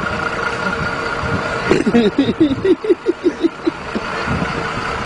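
Coach bus engine running steadily as the bus creeps through a tight turn. About two seconds in, a person's voice gives a quick run of short cries lasting about two seconds.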